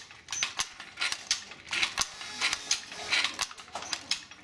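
Wooden and bamboo treadle handloom being worked by hand and foot: a steady, uneven run of wooden clacks and knocks, two or three a second, from the shuttle being thrown, the beater and the treadles.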